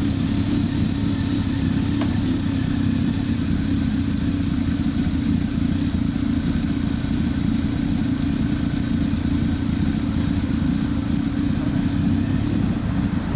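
Large inline-four motorcycle engines idling steadily, a low, even exhaust note with no revving.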